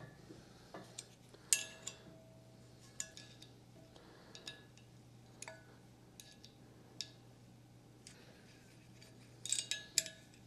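Hex key clicking and clinking against steel screw heads and the steel adapter plate as the screws are backed out: scattered light metallic ticks, some with a brief ring, and a quick cluster of clinks near the end.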